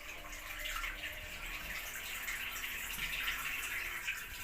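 Hisense washing machine draining after its drain was unblocked: the drain pump hums as water rushes out steadily, then both stop suddenly near the end as the drum empties.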